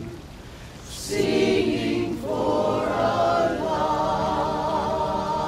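A choir singing a slow a cappella song. After a brief lull the voices come in about a second in and hold long notes, with vibrato in the second half.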